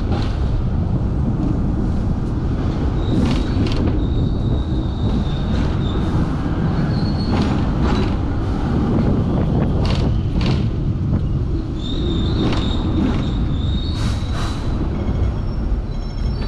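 Hong Kong double-decker tram running along its track with a steady rumble. Its wheels knock over rail joints, mostly in pairs about half a second apart, and give short high-pitched squeals twice.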